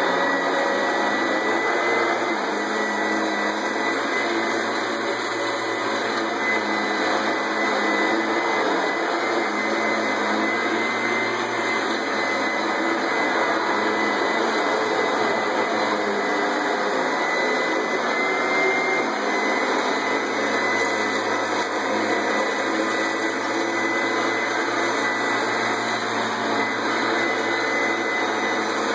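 1989 Hoover Elite 200 direct-air upright vacuum cleaner with a 5-amp motor running steadily at full speed, with a constant high-pitched whine over the motor's rush of air.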